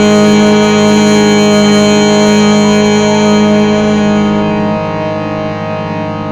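Harmonium drone under a chanted Om: a steady chord of long held tones that starts to fade about four seconds in.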